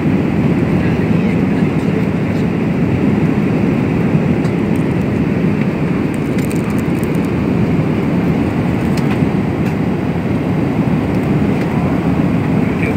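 Steady in-flight cabin noise inside a Boeing 777-300ER: an even low rumble of engines and airflow, with a few faint clicks around the middle.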